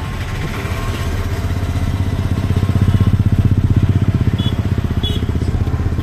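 Motor vehicle engine in slow traffic, heard from inside a car: a low, fast-pulsing rumble that swells about halfway through and then eases off.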